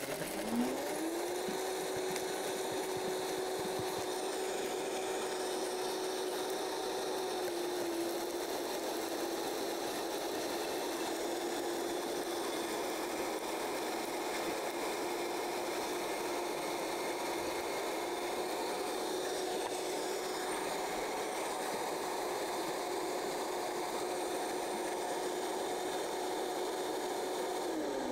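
High-speed countertop blender running steadily, blending garlic and other ingredients into a thick spice paste with a tamper held down through the lid. The motor spins up quickly at the start, holds one steady pitch, and begins to wind down at the very end.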